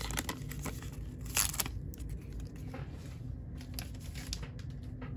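Baseball card pack wrapper crinkling, loudest in one rustle about a second and a half in, followed by soft ticks and rustles of trading cards being handled.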